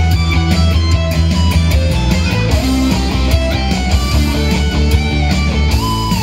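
Electric guitar played live through an amplifier: a lead melody of quick changing notes, settling into a long held note near the end.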